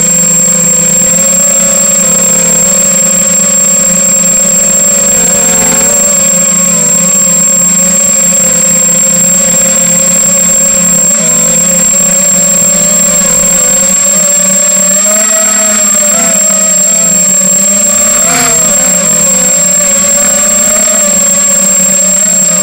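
H250 FPV quadcopter's electric motors and propellers buzzing in flight, their pitch wavering up and down with throttle changes, over a constant high-pitched whine.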